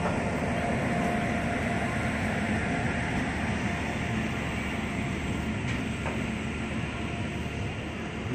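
Locomotive-hauled passenger train rolling past on the tracks: a steady rumble of wheels on rail that eases off slightly near the end.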